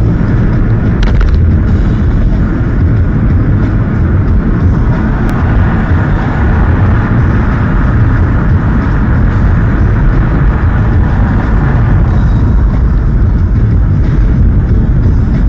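Steady, loud rumble of road and engine noise inside a moving car, picked up by the dashcam's microphone.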